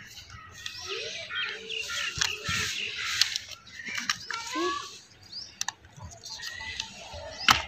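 Birds chirping in short calls, over hand-folding of paper with sharp crackles and taps as the creases are pressed; the loudest crackle comes near the end.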